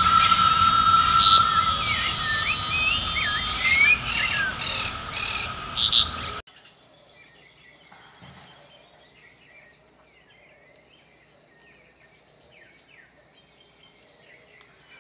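Loud, steady insect buzzing with birds chirping over it. The buzzing cuts off abruptly about six seconds in, leaving only faint bird chirps.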